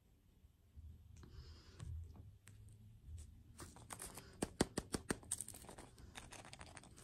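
Handling of small hard objects: faint rustling at first, then a busy run of sharp light clicks and taps from about three and a half seconds in.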